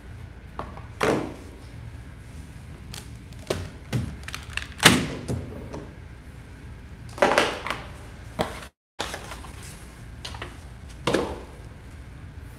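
Cardboard packaging and small parts being handled and set down on a desk: scattered knocks, thuds and scrapes at irregular intervals, with the sound cutting out for a moment near the end.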